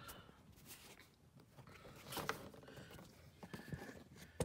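Faint handling noise: soft rustling with a few light clicks, as the fog lamp's wire is fed in past the plastic wheel-well liner.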